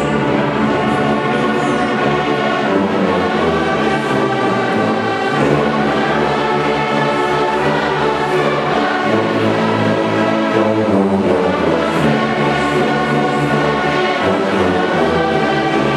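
A large church orchestra plays a hymn in slow, held chords, with brass among the instruments.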